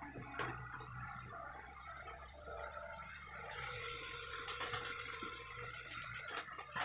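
Distant Hitachi hydraulic excavator working: its diesel engine running steadily, with irregular cracks and knocks that are loudest near the end.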